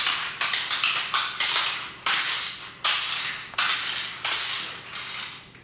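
Toddler's toy roller skates clacking on a hardwood floor as he steps and shuffles: about a dozen sharp clatters at irregular intervals, each dying away quickly.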